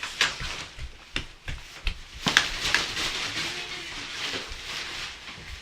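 Scattered light knocks and taps with rustling, as children play with toys and crawl about.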